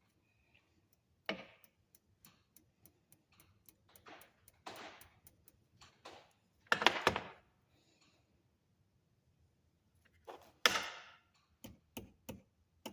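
Small clicks and ticks of pliers working copper wire, with a few short scraping, rustling handling noises as the wire is bent.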